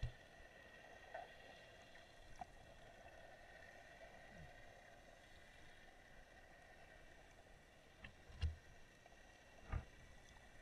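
Muffled underwater ambience recorded through a camera's waterproof housing: a faint steady hiss with a few short, low thumps, the loudest about eight and a half seconds in.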